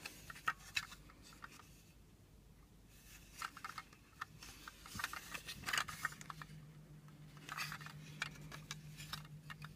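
Hard plastic toy playset being handled and turned over, giving scattered light clicks and knocks as its parts shift and touch. A faint steady low hum joins about six seconds in.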